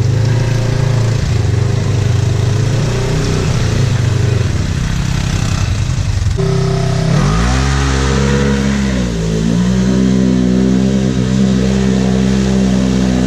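Off-road vehicle engine running hard in mud. About six seconds in, the engine note changes and its pitch swings up and down for a few seconds, then holds steady at a higher pitch.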